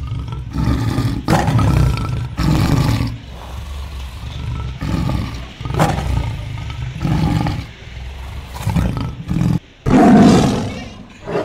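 Recorded tiger roars and growls played for a fake-tiger prank, a string of separate roars one every second or two, the loudest about ten seconds in.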